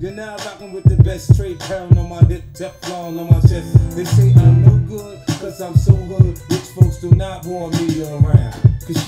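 Hip hop track with rapping over a heavy, steady beat.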